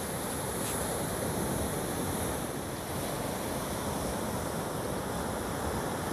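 Surf washing on a beach, with wind buffeting the phone microphone: a steady, even rush of noise.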